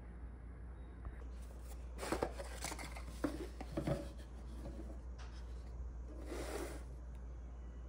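Cardboard jewellery gift boxes being handled and opened: a few bursts of papery scraping and rustling as the lid slides off and is moved on the table, with light taps as the pieces are set down.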